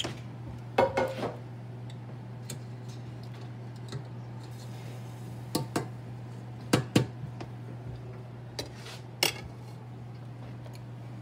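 A kitchen utensil and dishes clinking and knocking: a handful of sharp clinks and taps against a glass baking dish and plate, the loudest a pair near the middle, over a steady low hum.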